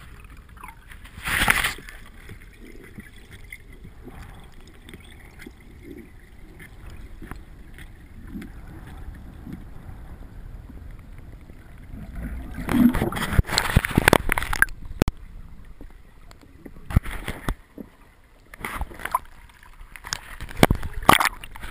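Muffled underwater noise through a camera's waterproof housing. About twelve seconds in, loud splashing and water washing over the housing as the freediver breaks the surface, then several shorter splashes near the end.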